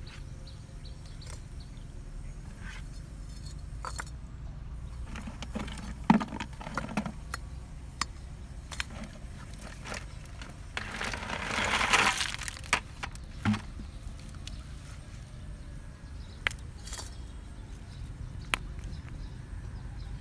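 Scattered clicks and knocks of a plastic bucket and bricks being handled, then, around the middle, a rattling clatter lasting about a second and a half as a bucketful of water snails is tipped out onto stony ground.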